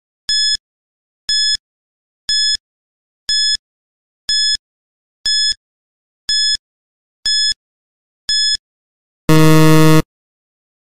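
Quiz countdown-timer sound effect: a short, high electronic tick-beep once a second, nine times, then a louder, low buzzer for under a second as the time runs out.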